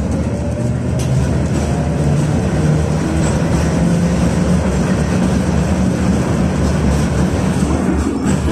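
Inside a moving KTM-19 (71-619KT) tram: steady running noise of wheels on rails, with a low traction-motor hum that rises in pitch over the first few seconds as the car picks up speed, then holds steady.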